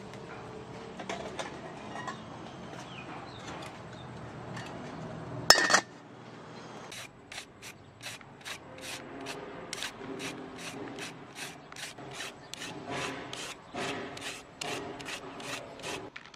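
Shredded green papaya being squeezed and rubbed by hand in a plastic bowl: a rhythmic rustling scrunch, about three strokes a second, starting about seven seconds in. It is preceded by low background noise and a single sharp click a little past five seconds.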